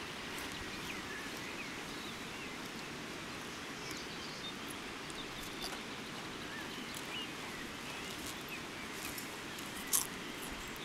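Steady outdoor background hiss by a river, with faint scattered bird chirps and one sharp click about ten seconds in.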